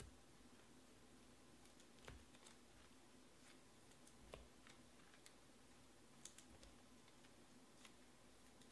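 Near silence: faint room hum with scattered light clicks and taps, irregular, about a dozen across the stretch.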